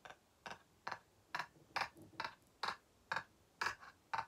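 A man laughing breathlessly, in short wheezing bursts of breath about two a second, getting a little louder partway through.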